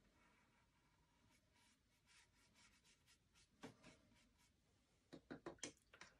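Faint scratchy dabs of a small paintbrush laying acrylic paint on a canvas, then a quick series of sharp taps near the end as the brush is knocked about in a plastic cup of rinse water.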